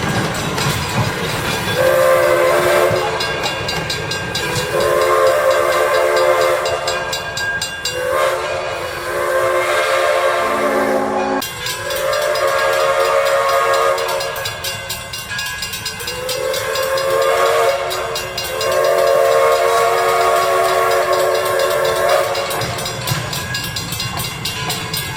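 Steam locomotive's six-chime whistle sounding a series of long, chord-like blasts over the hiss of steam.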